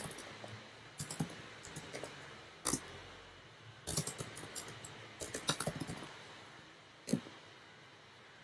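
Typing on a computer keyboard: several short bursts of keystrokes with pauses between them.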